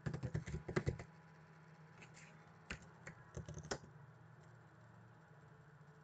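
Computer keyboard keys clicking: a fast run of keystrokes in the first second, then a handful of scattered clicks between about two and four seconds in, over a faint steady hum.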